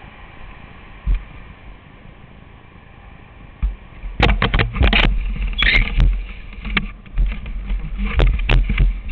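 Loud knocks and rubbing right at the kart-mounted camera's microphone, in clusters from about four seconds in to near the end, over a low rumble.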